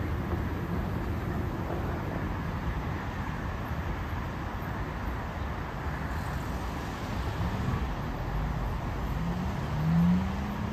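Steady outdoor ambience of road traffic: a constant rumbling hum with no single event standing out. Near the end a louder pitched sound rises briefly.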